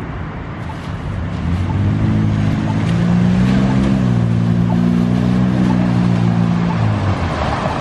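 Cars and a pickup truck driving through an intersection on rain-wet pavement: engine hum with tyres hissing on the wet road. It builds about one and a half seconds in and eases off near the end.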